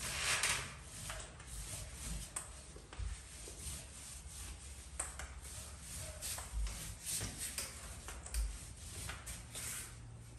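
Paint roller loaded with wet paint, rolled up and down a wall in repeated, irregular strokes.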